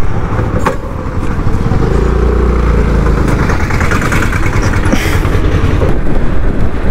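A scooter pulls away and rides along the road, its engine running under heavy wind buffeting on the helmet-mounted microphone. The low rumble grows heavier about two seconds in as the scooter gets under way.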